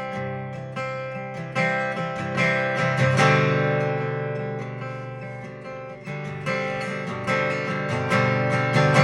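Acoustic guitar strumming chords in an instrumental break of a stripped-down country song, each strum left to ring.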